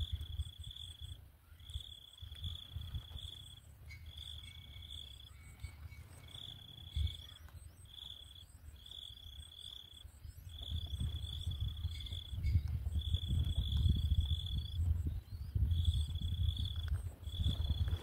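An insect trilling in repeated bursts of half a second to a second, each one high steady tone. A low rumbling noise runs underneath and grows heavier in the second half.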